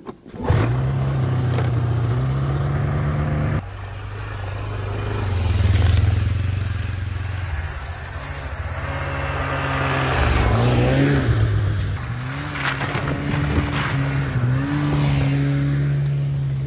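Yamaha Phazer snowmobile's two-stroke engine pull-started, catching about half a second in and running steadily. After a cut, snowmobile engines run and rev, rising and falling in pitch as the sleds ride past.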